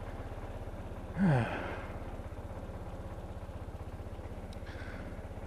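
2014 Kymco Downtown 300i maxi-scooter's single-cylinder engine idling steadily as it warms up, a low, evenly pulsing rumble. About a second in, a person gives one loud sigh that falls in pitch.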